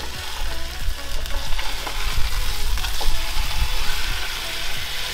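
Oiled barramundi fillet sizzling in a hot pan on a gas grill, a steady frying hiss, with a few short scrapes of a spatula as it is worked under the fish to turn it.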